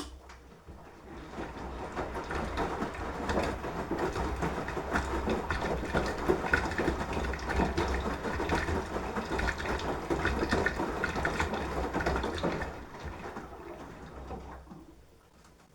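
Beko washing machine's drum turning on its motor, with water and laundry sloshing and splashing inside. The motor hum and sloshing build up about a second in, run steadily, then die away near the end as the drum stops.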